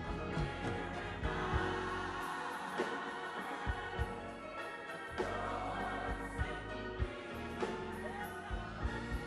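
Gospel music with sustained chords, drum hits and singing.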